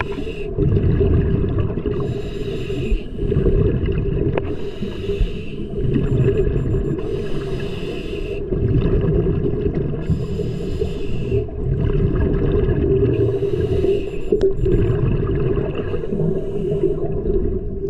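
Underwater sound of a scuba diver breathing on a regulator, with a burst of exhaled bubbles every two to three seconds over a steady low rumble of water.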